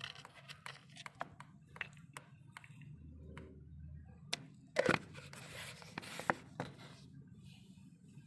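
Scattered light clicks, taps and scrapes from handling a small mortar and pestle and plastic containers, with one louder knock nearly five seconds in.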